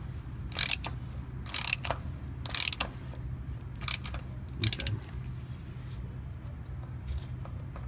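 A 3/8-inch-drive ratchet clicking in short bursts about once a second as it is swung back and forth on an extension, unscrewing the oil filter element housing cap. The bursts thin out over the last few seconds.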